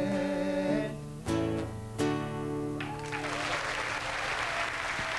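End of a song: a man's voice holds a final note with vibrato over acoustic guitar and bass. Two last strummed guitar chords follow, about a second and two seconds in, and ring on. Audience applause breaks out about three seconds in and keeps going.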